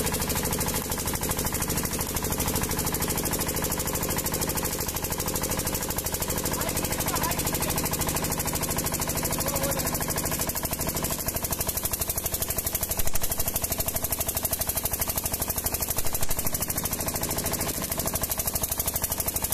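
Prakash 6 kVA welding generator's 14 HP diesel engine running steadily at 1500 RPM with a fast, even knocking beat. A stick-welding arc crackles on a steel plate near the end.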